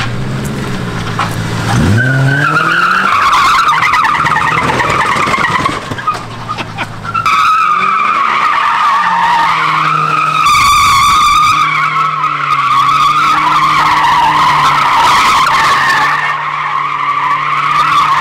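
A stripped-down car drifting in circles on concrete: the engine revs up hard about two seconds in, and the tyres squeal almost without a break, dropping out briefly about six seconds in.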